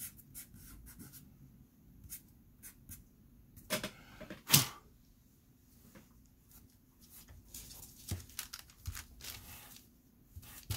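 Quick scratchy strokes of a paper blending stump rubbing soft pastel on paper, then rustling and handling of paper, tissue and pastel pencils, with one louder brushing knock about four and a half seconds in.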